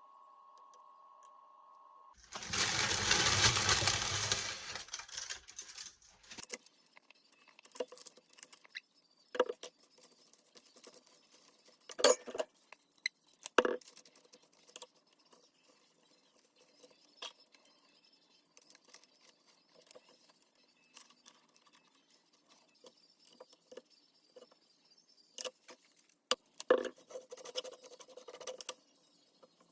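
Kitchen handling sounds while a sandwich is put together: a loud, rustling noise about two seconds in, then scattered clinks and taps of utensils and containers, a few of them sharper.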